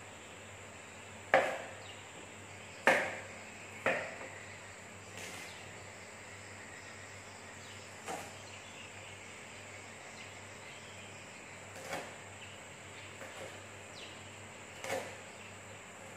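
Kitchen knife chopping on a cutting board: irregular sharp knocks, about nine, the loudest in the first few seconds, with quieter cuts between them.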